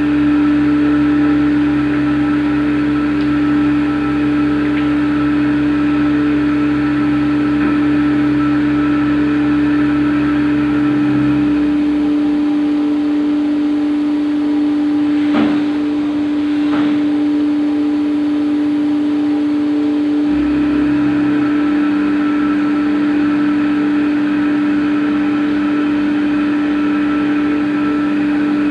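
CNC machine running with a steady motor whine. A deeper hum under it drops out about twelve seconds in and comes back about eight seconds later, and two brief clicks come in between.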